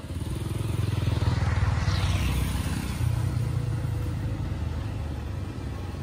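Motorcycle engine running close by, getting louder over the first second and a half and then holding fairly steady.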